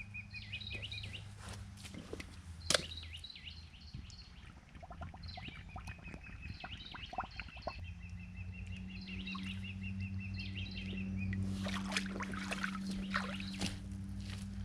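Small birds chirping, with one long, even trill through the middle, over a steady low hum and scattered knocks and clicks.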